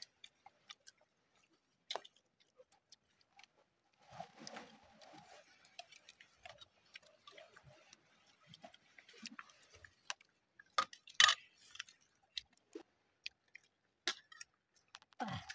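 People eating rice and grilled fish with their hands: scattered chewing, lip-smacking and small clicks of handling food, with a few sharper taps about two-thirds of the way through.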